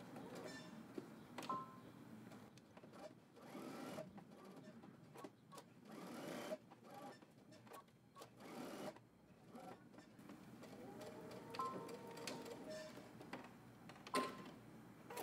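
Electric sewing machine stitching a seam, faint, starting and stopping in short runs as the fabric is turned at the corners.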